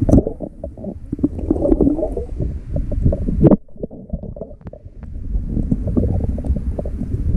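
Muffled underwater rumbling and gurgling of water moving against a submerged camera, with a sharp knock just after the start and another about three and a half seconds in. After the second knock it goes quieter for about two seconds, then the rumbling builds again.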